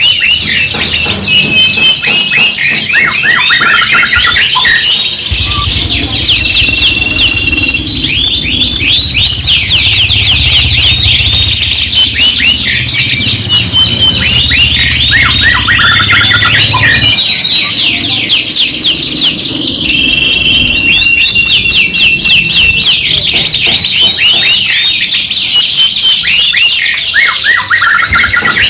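Several domestic canaries singing together: continuous, dense song of fast rolling trills and rapid chirps, with held whistled notes. A low hum runs underneath for a stretch in the middle.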